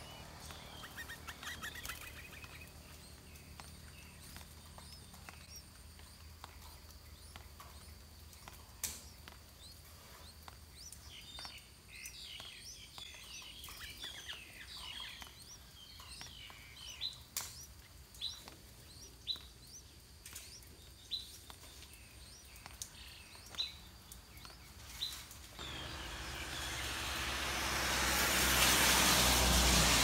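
Yellow-vented bulbuls chirping: a busy run of short high chirps, then single sharp calls about once a second. In the last few seconds a rush of passing-vehicle noise swells up and becomes the loudest sound.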